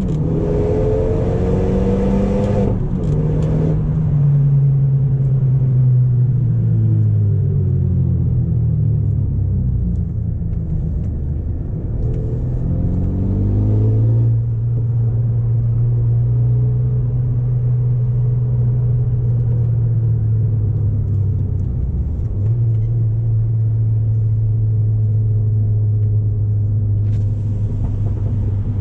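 Renault Megane RS turbocharged four-cylinder engine and Akrapovic exhaust under way. The engine note falls as the car slows, climbs again near the middle, then holds a steady cruising drone with a brief dip and recovery about three-quarters through, like a gear change.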